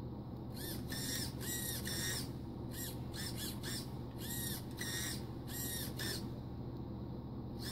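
Redcat Lightning STR RC car's electric drive motor revved in short throttle blips with its wheels spinning free on a stand. The whine rises and falls with each blip, about a dozen in quick groups.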